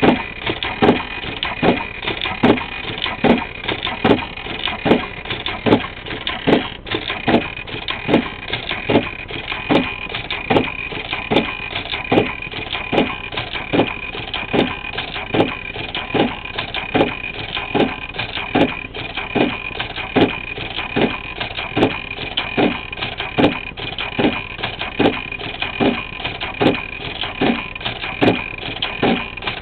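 Brother BAS-311 programmable pattern sewing machine running, stitching through 12 mm rope: a steady high whine with even, regular knocks about two to three a second.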